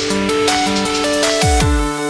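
Electronic background music with sustained synth notes and a bass sweep that falls in pitch near the end.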